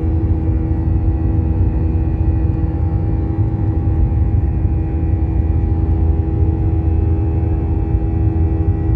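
Jet airliner cabin noise at a window seat: a steady, loud low rumble of turbofan engines and airflow, with a steady engine hum above it.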